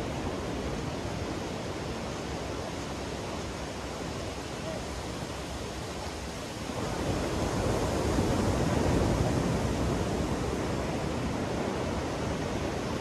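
Ocean surf washing onto a sandy beach, a steady rush of breaking waves. A little past halfway a wave breaks and the wash swells louder, then slowly eases.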